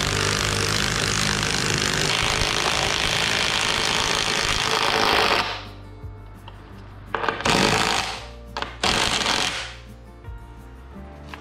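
Power drill driving a lag bolt into a wooden post, running hard for about five seconds, then two short bursts as the bolt is snugged down. Background music plays underneath.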